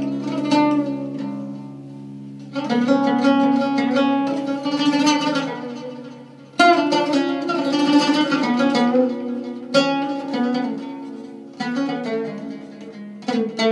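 Instrumental music on a plucked string instrument: notes and chords struck in phrases that ring and fade, each new phrase entering sharply every few seconds.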